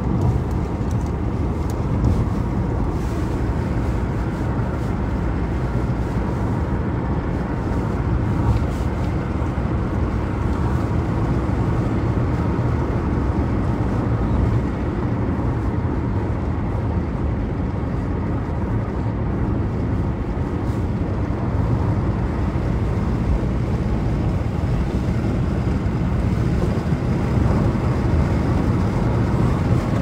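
Steady low rumble of a car driving on an open highway, heard from inside the cabin: tyre and engine noise at a constant cruising speed.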